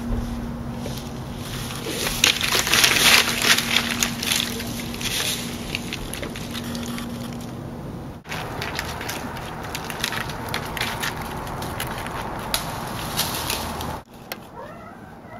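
Black bear cubs scrambling up tree trunks and through dry fallen leaves: claws scratching bark and leaves crackling, in dense bouts. A steady low hum runs under the first half.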